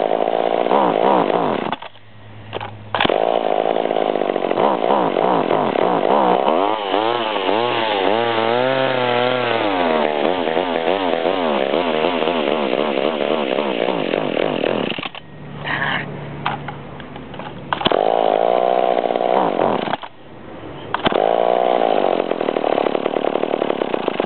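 McCulloch Eager Beaver two-stroke chainsaw running unevenly: its engine revs up and down, and three times it sags away almost to stalling before picking up again. It won't stay running, which the owner puts down to something wrong with the carburetor or the fuel line.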